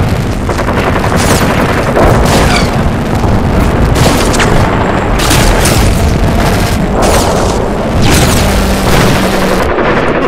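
Onboard-camera audio of a racing quadcopter's Emax 2204 brushless motors and propellers whining and surging up and down with the throttle, heavily distorted by wind buffeting on the microphone. The high whine drops away near the end as the quad tips into the grass.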